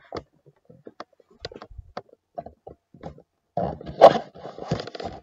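Handling noise from a camera being moved around: scattered light clicks and knocks, then a louder stretch of rubbing and rustling from about three and a half seconds in.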